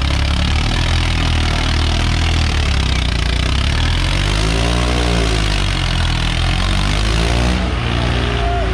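Swaraj 855 tractor's three-cylinder diesel engine running hard as the tractor spins on a rear wheel with its front reared up. Its pitch swells and falls back about halfway through, and again more briefly a little later.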